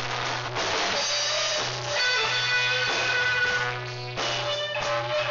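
Background music track with guitar and drums.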